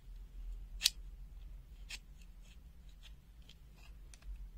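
Knipex 82 02 200 screw-extractor pliers being worked by hand, giving a series of short metallic clicks, one sharp click about a second in louder than the rest.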